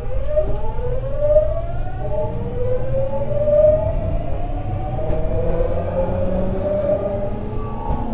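Early Hitachi GTO-VVVF inverter and traction motors of a Tokyu 9000 series electric train accelerating from a standstill, heard inside the car: a whine that climbs in pitch in several steps as the inverter's modulation changes, over the low rumble of the wheels.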